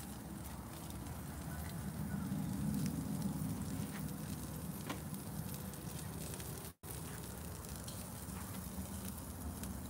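Pork loin chops sizzling gently on a charcoal grill grate, with the lit charcoal crackling in small, scattered pops under a steady hiss. The sound cuts out for a split second about two-thirds of the way through.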